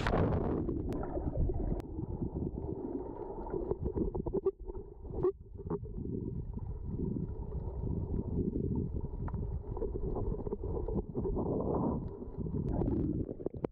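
A splash as a swimmer plunges into the sea, then muffled rushing and low rumbling of churning water heard underwater, with a few faint knocks. The sea is too rough to dive in: strong current and swell stirring everything up.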